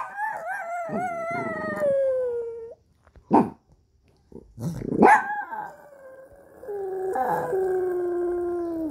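Small dog howling in reaction to an ambulance siren. A long howl slides down in pitch, then comes a short sharp sound about three and a half seconds in and a rising note near five seconds, then a second long howl that falls slowly.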